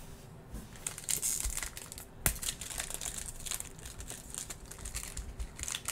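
Foil wrapper of a Panini Mosaic trading-card pack crinkling as it is handled and torn open by hand, with one sharp crack about two seconds in.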